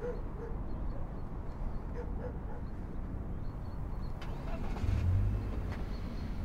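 A car's engine running low as the car rolls slowly closer, swelling in the low rumble about five seconds in.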